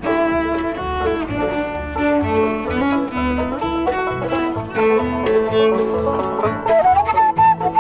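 Live acoustic string band playing a bluegrass-style tune: bowed cello notes over strummed acoustic guitar and plucked banjo, with a steady pulse. Near the end a flute slides up and takes over the melody.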